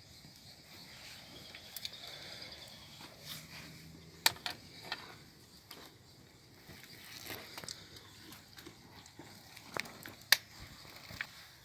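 Scattered sharp knocks and snaps over a faint outdoor background, the loudest a cluster about four seconds in and a pair near ten seconds.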